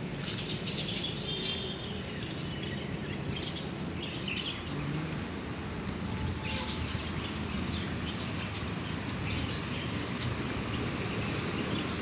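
Caged parrots and parakeets giving short, high chirps and squeaks scattered through, over a steady low background rumble.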